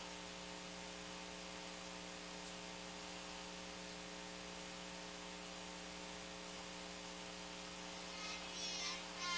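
Steady electrical mains hum with hiss from the microphone and sound system, unchanging in level. Faint high voices come in near the end.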